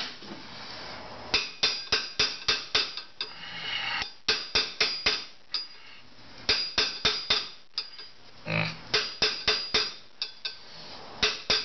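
Hammer blows on a hand impact driver fitted to a rear brake disc bolt, sharp metallic strikes in quick runs of several a second with short pauses between them. The bolts are held with blue Loctite and have been heated so the impact driver can break them loose without rounding their heads.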